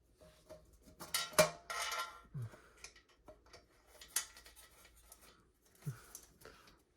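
Small metal ceiling-fan parts being handled: a series of sharp clicks and clinks, the loudest about a second and a half in, with another clear clink around four seconds.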